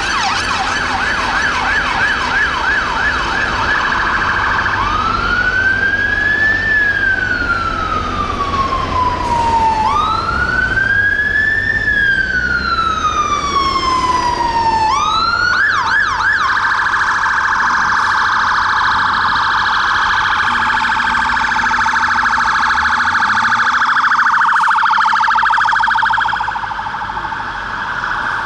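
Emergency vehicle sirens from London Fire Brigade fire engines responding. A fast yelp comes first, then two slow wails that rise and fall, a short yelp, and a very rapid warble for the rest. Engine rumble runs underneath.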